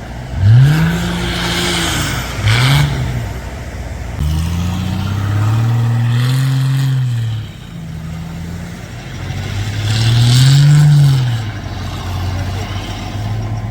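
Off-road 4x4 engine revving up and falling back about four times, each rev a rising and falling swell, the longest lasting about three seconds.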